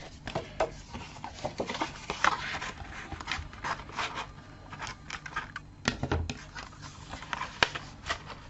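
Paper and card being handled and worked by hand: irregular taps, rustles and light scrapes.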